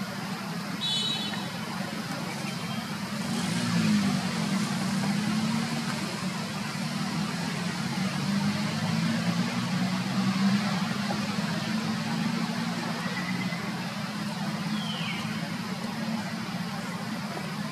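Steady low rumble of motor traffic, swelling about four seconds in and again around ten seconds, with a brief high chirp about a second in and a couple of short thin squeals that rise and fall near the end.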